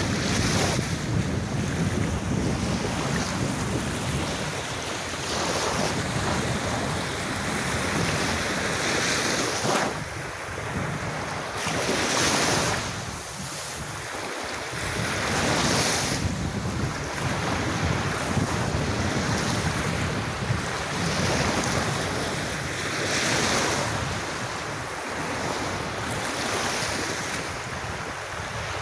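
Sea waves washing onto a beach, surging and falling back every few seconds over a steady hiss. Wind rumbles on the microphone underneath.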